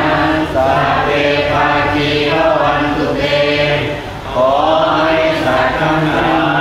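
Thai Buddhist blessing chant led by a monk, several voices chanting together in a slow, drawn-out melodic line, with a short pause for breath about four seconds in.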